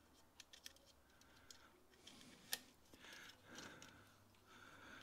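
Faint clicks and taps of a hand pop-rivet gun and a brass rivet being handled and seated in a hole in a plastic part, with one sharper click about two and a half seconds in; otherwise near silence.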